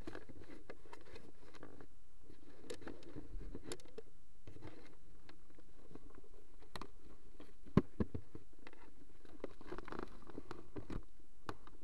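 Rustling and scattered small clicks over a steady low hiss, with one sharper click about eight seconds in.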